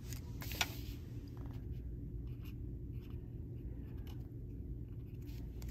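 Pen writing on a paper data sheet: faint scratching strokes and small ticks over a steady low hum.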